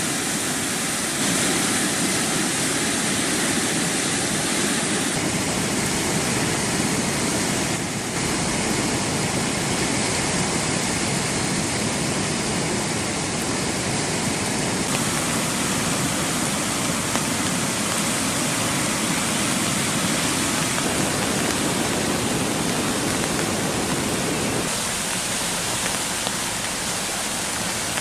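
Steady rush of a river in flood, turbulent brown water churning over its bed; the tone of the rush shifts a few times between shots.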